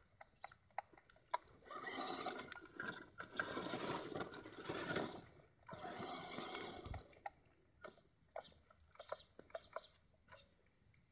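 Electric 1/10-scale RC trucks' motors and gear drivetrains whirring in short bursts of throttle, tyres crunching over stones. There are sharp clicks of rocks here and there, and the last few seconds are quieter.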